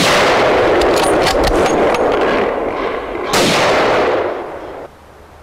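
Two gunshots about three and a half seconds apart, fired at a running wild boar, each dying away over a second or more.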